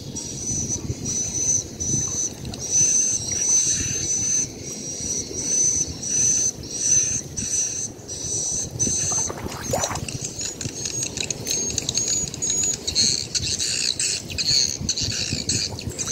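Muddy water sloshing and splashing as hands work a fish trap into a flooded rice field. Over it, a high chirping call repeats about once or twice a second, giving way to busier, more varied chirping from about ten seconds in.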